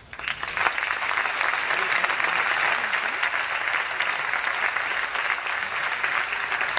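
Audience applauding, swelling in within the first half second and then holding steady.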